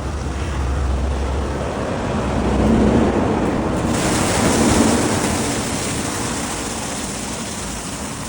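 Steady rushing and splashing water noise that turns brighter and hissier about four seconds in.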